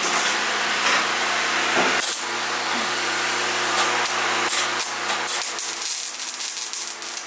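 MIG welder arc crackling and spattering as it fills a hole in a sheet-steel floor. It is a steady hiss with sharp crackles, which get denser in the second half.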